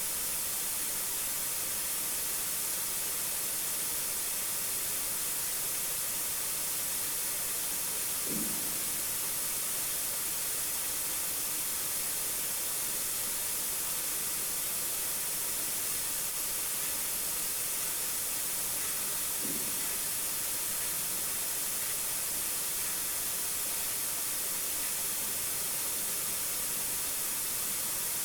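Steady high hiss, with two short, faint low sounds, one about 8 seconds in and another about 19 seconds in.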